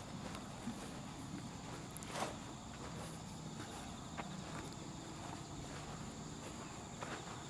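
Footsteps of a person walking on grass, a scatter of soft irregular steps, with one sharper thump about two seconds in.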